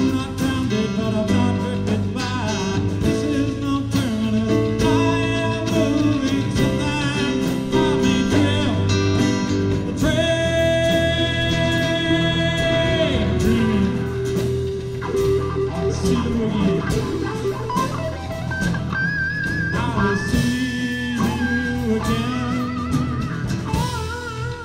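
A rock band playing live: drum kit, bass guitar and guitars under a lead melody of long held notes, some wavering with vibrato.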